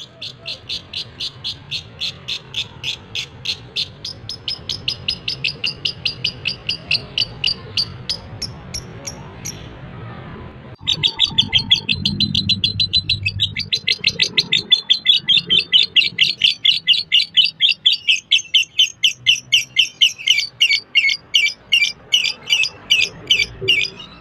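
Lovebird singing a long, fast run of short repeated chirps, about four or five a second, the sustained chattering song keepers call 'konslet'. The run breaks off for about a second midway and resumes louder.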